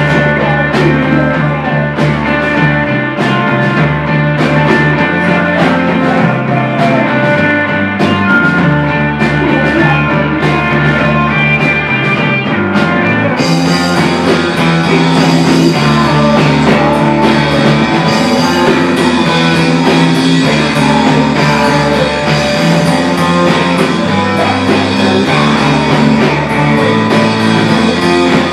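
A live rock band playing an instrumental passage on electric guitars and drums. About halfway through the sound gets brighter and fuller.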